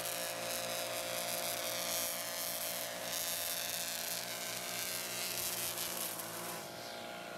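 Handheld gas string trimmer engine running at a steady high speed as it trims along a bed edge, a constant buzzing drone that eases slightly near the end.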